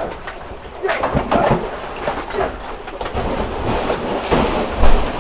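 Short cooing bird calls over a rough, rumbling noise like wind buffeting the microphone, with a louder bump shortly before the end.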